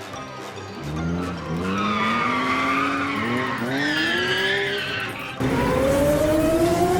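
Racing engine sound effects for cartoon toy vehicles, revving up and rising in pitch again and again. About five seconds in it cuts suddenly to a louder engine, climbing steadily in pitch over a hiss.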